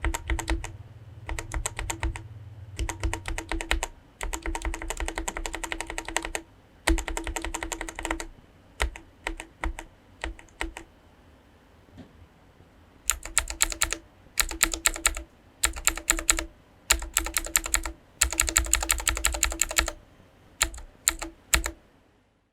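Typing on keycapped Outemu Black linear 60 g mechanical keyboard switches, in runs of rapid keystrokes. After a short pause about halfway through, the typing goes on with Outemu Blue clicky 60 g switches, each keystroke a sharper click.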